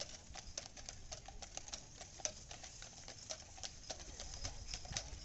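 Hooves of a team of Percheron draft horses on pavement: a quick, irregular run of sharp clip-clops.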